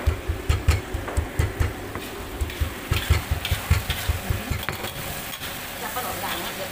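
Stone pestle pounding red chillies in a granite mortar: a quick run of dull thuds, about three or four a second. After about four and a half seconds the thuds give way to curry gravy sizzling in a wok on a gas burner while a spatula stirs it.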